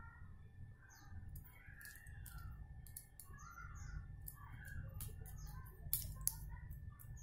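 Small sharp clicks from a bicycle rear derailleur being turned and worked in the hands, the two loudest about six seconds in, with a bird calling several times behind them.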